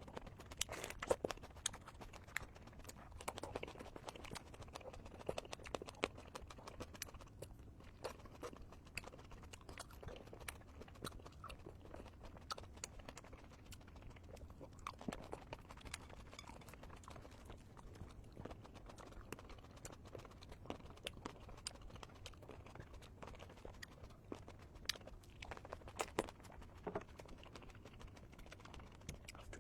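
Close-miked mouth sounds of someone eating fresh tomatoes: a run of irregular small wet clicks, crunches and chewing noises.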